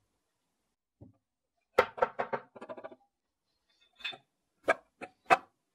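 Steel milling tool holders knocking and clunking as they are set into a 3D-printed plastic tool caddy. About eight separate knocks, one quick rattling cluster with a brief ring. The caddy printed about an inch too short, so the holder's pull stud bottoms out on the bench.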